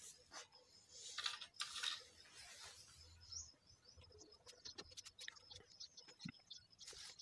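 Felt-tip marker writing on paper: faint scratching strokes and small ticks as letters are drawn, with two louder brushing noises about a second in.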